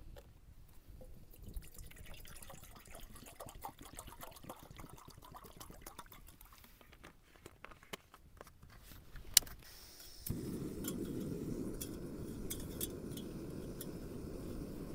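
Water poured from a plastic bottle into a Jetboil cooking pot, trickling faintly with small clicks. About nine seconds in there is a sharp click, and then a steady rushing sound sets in suddenly, as of the gas stove burner lit under the pot.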